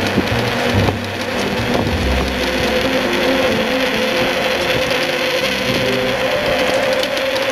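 Bicycle dog trailer rolling along a road: steady tyre, rattle and wind noise, with a steady hum running underneath.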